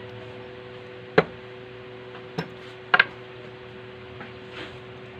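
Metal tools and sewing machine parts clinking as they are handled, four short sharp clicks: one about a second in, one near the middle, and a quick pair about three seconds in. A steady low hum runs underneath.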